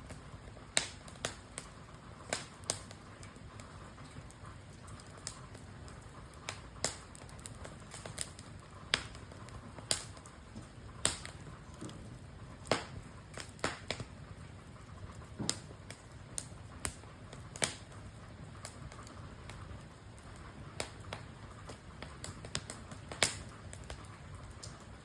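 Wood campfire crackling, with sharp, irregular pops about once or twice a second over a low steady hiss.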